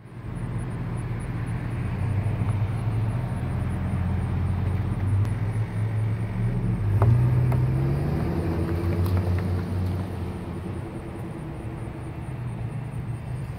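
A motor vehicle's engine running, its low hum rising in pitch and loudest about seven seconds in, then fading away.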